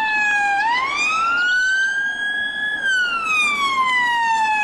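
Emergency vehicle siren on a wail setting: one slow, steady tone that falls, sweeps up over about a second, holds high, then slides slowly down again.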